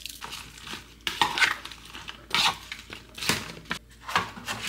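Oiled, salted Brussels sprouts being tossed and stirred in a bowl, clattering and scraping against its sides in irregular bursts.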